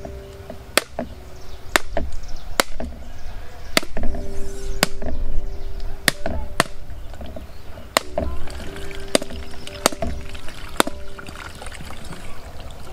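A cleaver striking a whole husked coconut held in the hand: about eleven sharp knocks, roughly one a second, cracking the shell open.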